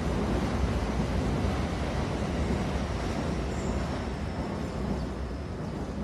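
Rumble of a train in motion, a steady noise heavy in the low end that slowly fades.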